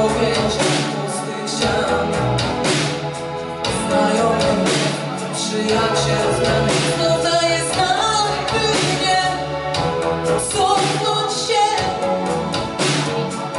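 A woman singing a pop song live into a microphone, backed by a drum kit and keyboard, with steady drum hits under the voice.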